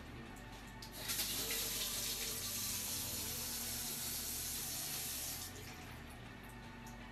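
Water running from a two-handle mixer faucet into a ceramic pedestal sink basin. It comes on about a second in, runs for about four and a half seconds, then is shut off.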